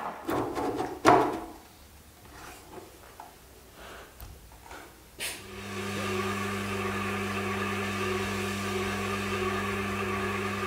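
Tormek T-8 wet sharpener switched on about five seconds in and running with a steady low hum while a plane iron is honed on its leather honing wheel to remove the burr. Before that, a few soft handling knocks.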